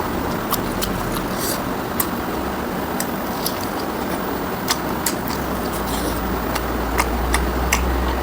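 Close-miked chewing and mouth sounds of someone eating pork ribs with rice: scattered sharp smacks and clicks, a few a second, over a steady background hiss and low rumble.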